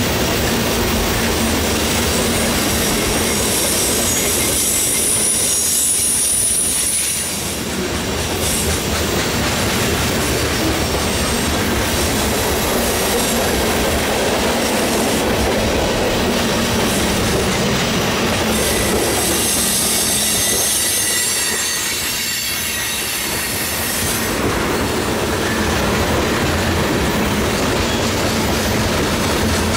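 Freight cars of a mixed freight train rolling past close by on a curve: steady noise of steel wheels on rail, with a high-pitched wheel squeal in the first few seconds and again about two-thirds of the way through.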